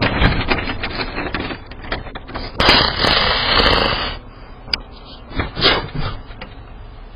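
Irregular clicks, knocks and scraping picked up by a doorbell camera's microphone as an animal mouths and rubs against the camera. About three seconds in there is a loud rush of rubbing noise for a second and a half.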